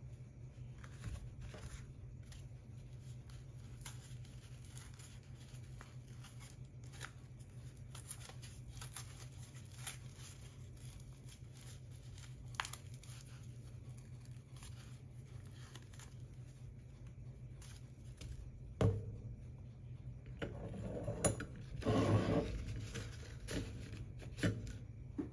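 Soft clicks and paper rustling from hands handling a paper coffee bag and a paper cone coffee filter, over a low steady hum. The filter's paper crinkles loudest in a few rustling bursts near the end.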